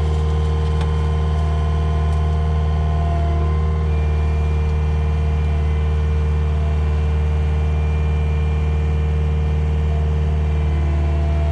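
Diesel engine of a piece of heavy equipment running steadily at constant speed, with a slight change in its tone about four seconds in.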